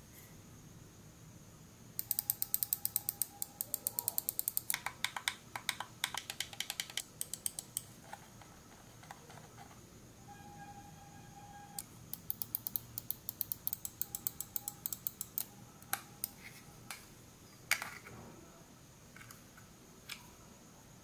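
Onikuma CW905 wireless gaming mouse being clicked and scrolled by hand: quick plastic clicks, about seven a second, in two runs of a few seconds each, the first starting about two seconds in and the second about twelve seconds in. Then a few scattered clicks, one of them louder, near the end.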